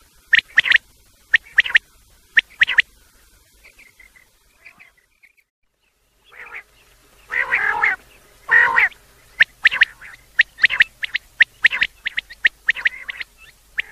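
Recorded quail calls from a lure track meant to draw quail in for netting. Sharp short calls come in pairs at first, then a brief lull with faint chirps. Two longer, harsher calls follow, then a fast run of short calls.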